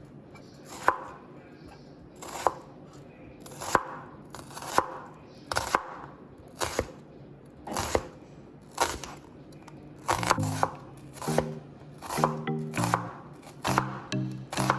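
Knife chopping onions on a cutting board: sharp single chops about once a second, coming faster in the last few seconds. Background music comes in about two-thirds of the way through.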